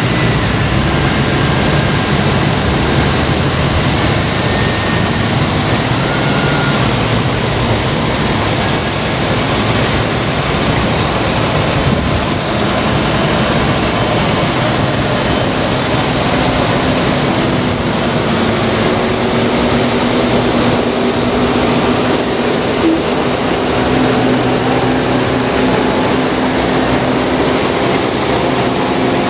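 A slow convoy of large farm tractors followed by vintage military trucks and 4x4s driving past, their engines and tyres making a steady loud din. In the later part a steady low engine drone from a heavier passing vehicle stands out.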